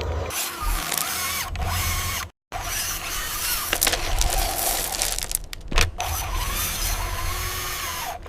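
Electric motors and gearboxes of RC construction models whining and grinding, the whine rising and falling in pitch as the machines move. It breaks off briefly about two seconds in, and there are a few sharp clicks near the end.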